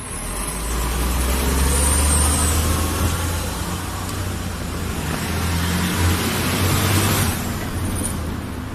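A motor vehicle's engine running close by, with a deep steady low note and road noise that grow loud about a second in, dip briefly, swell again and ease off near the end.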